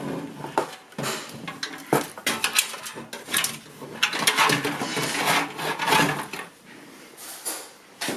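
Computer parts being handled in and against a metal PC case: repeated clattering knocks and clicks with scraping and rubbing between them, as the power supply is brought into place.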